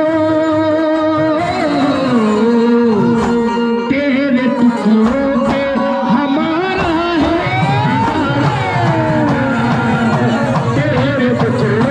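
Background music: a melody of long held notes that slide up and down in pitch, with a singing voice.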